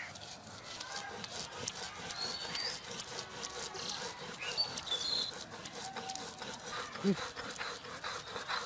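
Stone roller grinding chilies into paste on a flat stone slab (sil-batta), a gritty rasping rub repeated with each back-and-forth stroke.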